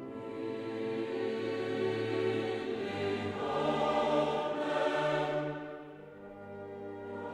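Background classical music: a choir singing with an orchestra, swelling in the middle and dipping near the end.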